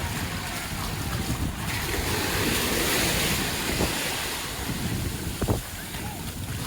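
Waves breaking on a sandy beach, the surf's hiss swelling about a second and a half in and easing off a couple of seconds later, with wind rumbling on the microphone.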